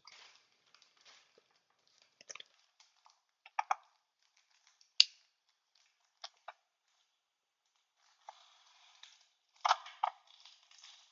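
Packaging being handled as small boxes are opened: scattered light crinkles and rustles, a single sharp click about five seconds in, and a denser patch of crinkling near the end.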